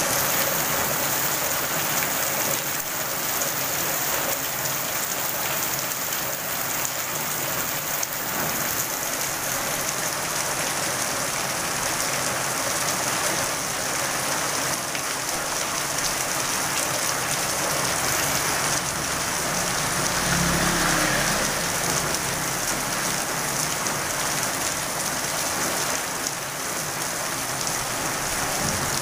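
Steady rain falling on a wet paved street, an even hiss of drops throughout. A brief low rumble rises and fades about two-thirds of the way through.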